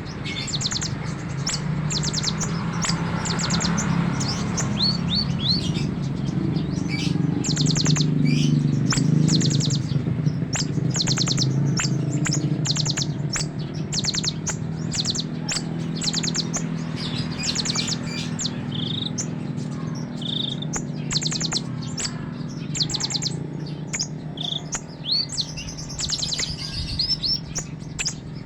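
Konin songbird singing a varied run of rapid chattering notes and short whistled chirps, its repertoire ('isian'), with a steady low hum underneath.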